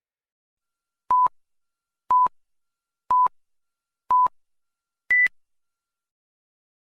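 Electronic countdown beeps: four short beeps of the same pitch, one a second, then a fifth, higher beep.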